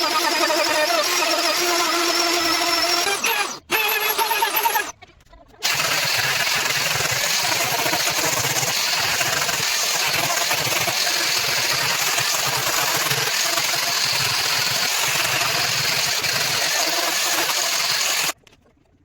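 An electric power tool working wood. It runs with a steady whine for the first few seconds, then after a short break gives a steady rough noise with a low hum for about twelve seconds, and cuts off suddenly near the end.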